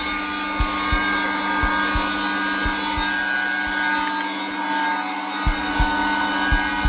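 Zelmer vacuum cleaner running steadily on its lowest setting, a constant whirring hum, with a heartbeat's paired low thumps about once a second over it. The heartbeat fades out for a moment in the middle and returns near the end.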